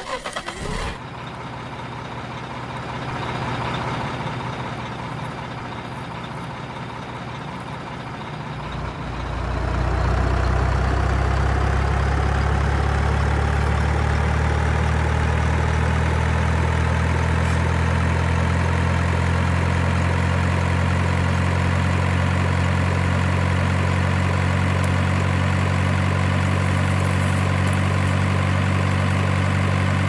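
Heavy diesel truck engine sound: it comes in suddenly, and about nine seconds in it grows louder and settles into a steady low idle.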